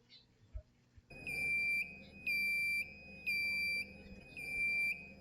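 Ship's electronic alarm sounding in repeated high beeps, each about two-thirds of a second long with short gaps, four in a row, starting about a second in.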